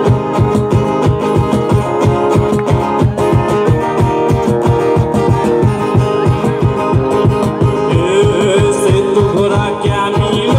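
Live music from an acoustic guitar with a cajon keeping a steady, fast beat.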